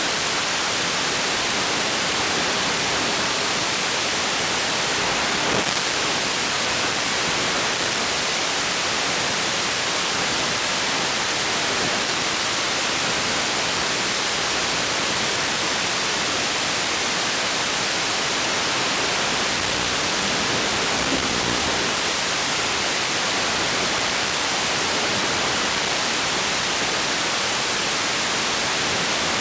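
Steady static hiss with nothing else in it, the empty audio channel of an analog FPV video receiver recording.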